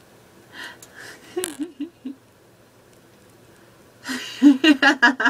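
A person's voice with no words: soft murmured sounds, then a run of quick, breathy laughs near the end.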